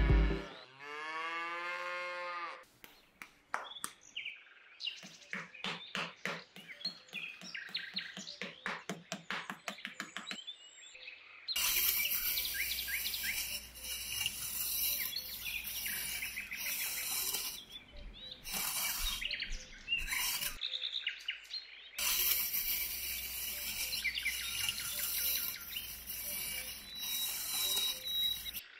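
A cow mooing, its call falling away within the first two seconds, then small birds chirping in quick runs. From about eleven seconds a fuller chorus of birdsong with a steady hiss behind it takes over, dropping out briefly about twenty seconds in.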